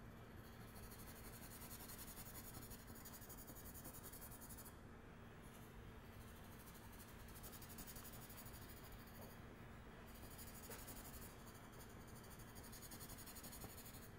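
Faint scratching of a pencil laying down shading strokes on drawing paper, masking in tone.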